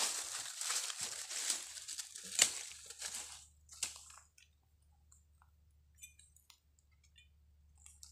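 Footsteps crunching and rustling through dry fallen leaves, with a few sharper crunches, stopping about four and a half seconds in; after that only faint scattered leaf ticks.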